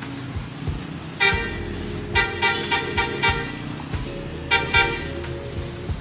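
Vehicle horns honking from the street below: a blast about a second in, a quick run of short honks, then a couple more near the end.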